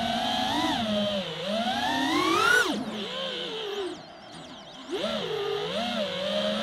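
Brushless motors and propellers of a 5-inch 6S FPV quadcopter whining, the pitch rising and falling with the throttle. A long rising climb peaks about two and a half seconds in and drops off sharply. The motors fall to a faint hum for about a second near the four-second mark, then throttle back up and waver.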